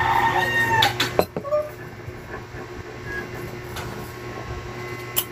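A domestic animal calling: one long, held call in the first second, then a brief faint call about a second and a half in, with a couple of sharp clicks between them over a steady low hum.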